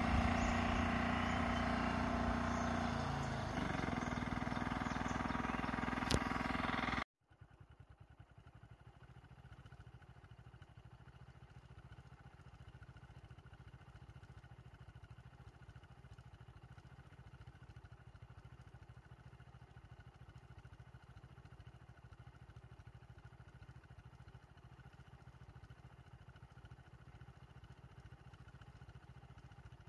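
A vehicle engine idling steadily, its low note stepping down slightly about three and a half seconds in, with one sharp click about six seconds in. About seven seconds in the sound cuts off abruptly, leaving only a faint low hum.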